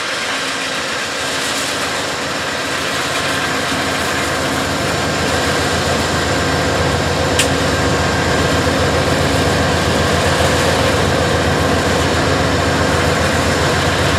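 Diesel engine of an Amtrak passenger locomotive idling steadily while the train stands in the station, growing slowly louder. A single sharp click comes about seven seconds in.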